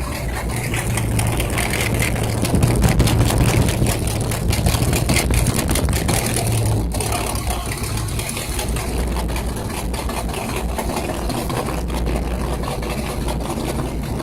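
Chevy 305 V8 engine idling steadily, a little louder for a few seconds near the start; the owner calls it cold-blooded.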